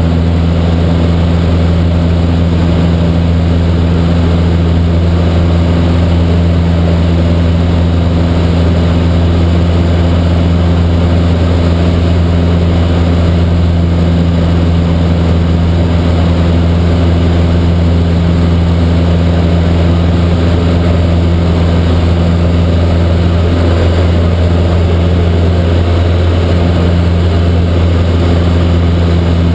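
Cessna 152's four-cylinder Lycoming O-235 engine and propeller running steadily in flight, heard inside the cabin as a loud, constant low hum that doesn't change in pitch.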